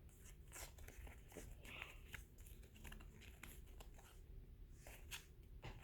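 Faint, scattered soft clicks and rustles of trading cards being handled and flipped, close to near silence.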